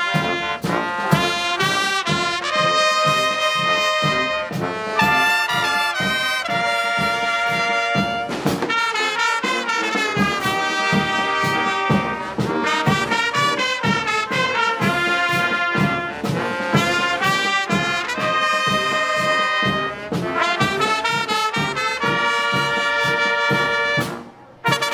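Street brass band playing a tune with trumpets and trombones over a steady beat; the playing breaks off near the end.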